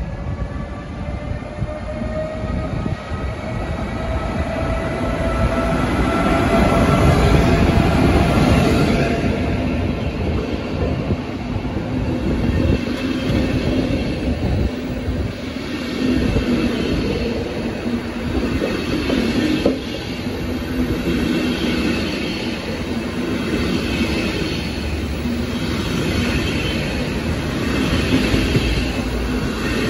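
Electric locomotive hauling FlixTrain passenger coaches along the platform track. A whine from the locomotive rises slightly in pitch in the first several seconds, then the rumble and wheel noise of the coaches rolling by close up carries on.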